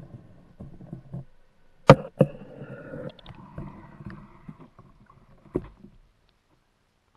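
Water splashing and sloshing around an underwater camera as it breaks the lake surface, with two sharp knocks about two seconds in and another a little over five seconds in.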